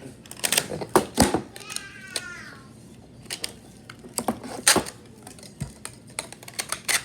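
Hard plastic parts of a toy lightsaber hilt clicking and clacking as they are handled and fitted together, in scattered sharp clicks. A brief high squeal falls in pitch about two seconds in.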